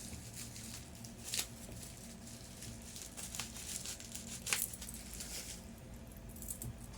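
Quiet handling noises: a few light clicks and faint rustling as watches are picked up and handled, over a low steady hum.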